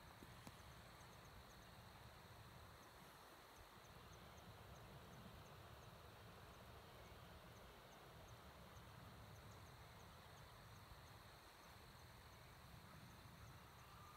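Near silence: a faint insect chirping steadily, about two high chirps a second, over a low background rumble.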